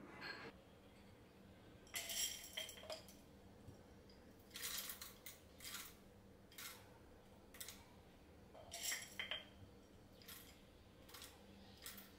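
Plastic wrapping and paper souvenir items being handled: a series of short, soft crinkles and rustles at irregular intervals.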